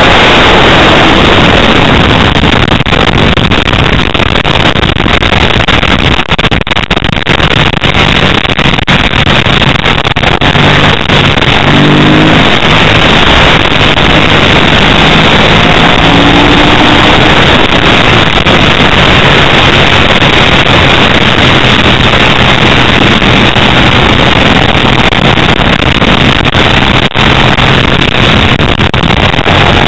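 Ducati 888's 90° V-twin engine at racing speed, heard from an onboard camera under heavy wind rushing over the microphone. The engine note rises briefly a couple of times as the bike accelerates.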